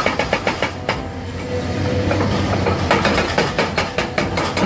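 Hydraulic rock breaker on an excavator hammering into rock in rapid, evenly spaced blows, easing off for a moment mid-way, over the steady low hum of the excavator's engine.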